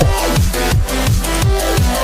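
Electronic dance music with a fast beat and repeated downward-sweeping bass notes.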